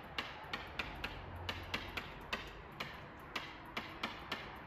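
Pen tip tapping against an interactive whiteboard as words are handwritten: a series of sharp, irregularly spaced clicks, roughly two a second.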